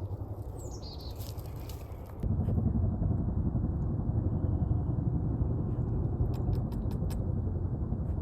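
Low rumbling noise on the microphone that gets louder suddenly about two seconds in. A short descending bird chirp sounds near the start, and a few sharp clicks come in the second half.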